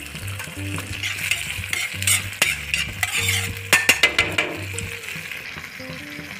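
Onions, capsicum and green chillies sizzling in sauce in a hot frying pan while being stirred. The utensil scrapes and clicks sharply against the pan a few times around two seconds in and again near four seconds.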